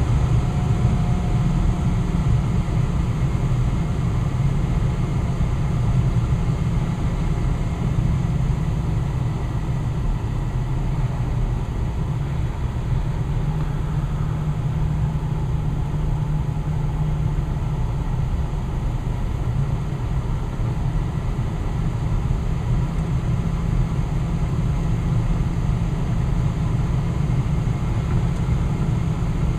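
Westinghouse gas furnace's blower fan running steadily with a low hum and rush of air, at its slower speed after the burner has shut off: the fan's cool-down run at the end of a heating cycle.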